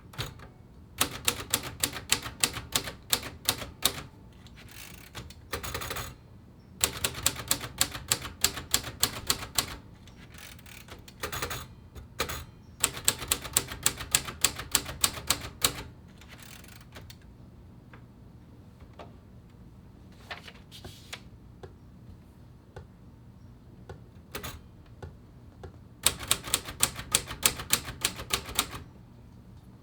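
1950s Royal Quiet De Luxe manual typewriter being typed in capitals: runs of quick, even keystrokes, the typebars striking the platen, broken by pauses, with a longer quieter stretch of only scattered light clicks midway.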